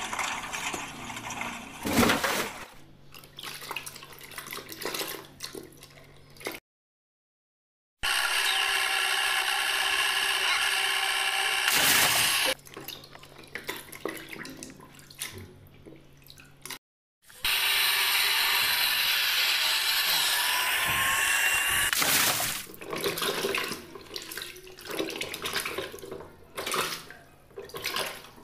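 Water splashing and sloshing as plastic toy vehicles are scrubbed by hand in a tub of soapy water, in edited stretches broken by two short cuts to silence.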